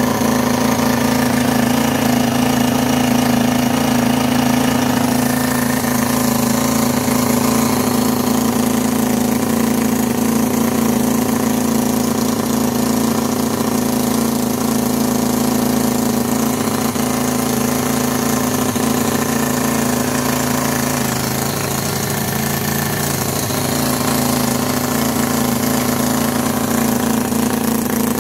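Cison L4-175 miniature inline four-cylinder four-stroke model engine, converted to nitro glow fuel with a Traxxas 4033 carburetor, running at a steady speed.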